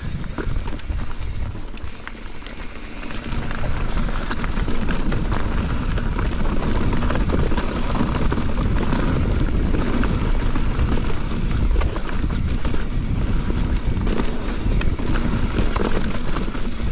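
Mountain bike riding fast down a rough, rocky trail: steady wind rush on the microphone, with the tyres rolling over rock and the bike clattering in many small knocks.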